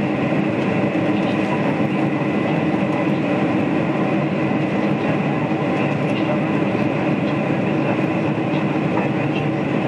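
Steady cabin noise inside a Boeing 747-400 in climb after takeoff: its jet engines at climb power and the rush of air over the fuselage, an even drone with a faint steady high whine.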